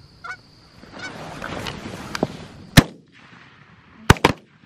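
Geese honking briefly, then a rush of noise and three shotgun shots: one loud shot nearly three seconds in, and two quick shots close together near the end.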